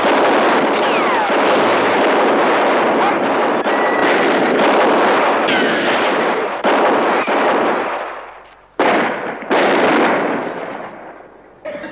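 Film gunfight: dense, rapid revolver gunfire with echoing cracks and a few falling ricochet whines. It thins out about eight seconds in, then two last loud bursts of shots ring out and die away.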